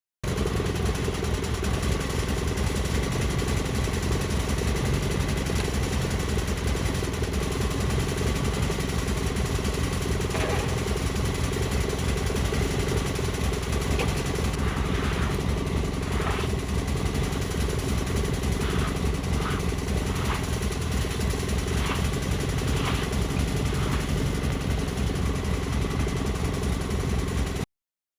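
Portable sawmill's engine running steadily, with a few faint short ticks in the second half.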